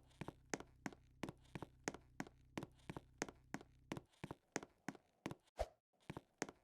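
Sharp, even taps or clicks repeating about three times a second, over a low steady hum that cuts off about four seconds in.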